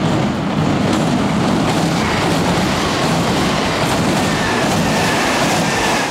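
Kintetsu electric train passing close by on a railway bridge: a loud, steady rumble of wheels on rails, with a faint, slowly falling whine in the second half. It cuts off abruptly at the end.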